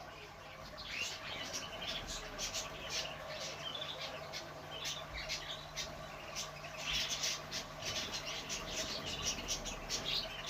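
Many small cage birds chirping and calling together, short rapid chirps overlapping throughout, over a faint steady hum.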